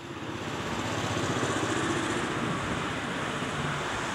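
Wind buffeting the camcorder microphone ahead of a thunderstorm: a steady rushing with a fluttering low rumble, growing louder over the first second.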